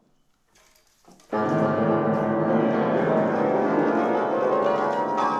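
Square piano, an early pianoforte, starting to play about a second in: many notes sounding together and held, loud and full.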